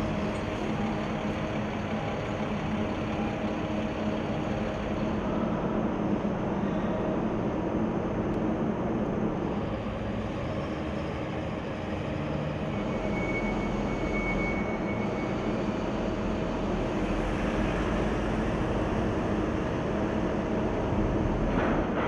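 Military trucks' diesel engines running steadily as the vehicles drive off a cargo ship's ramp, over a constant low machinery hum. A faint high whistle sounds briefly about two-thirds of the way in.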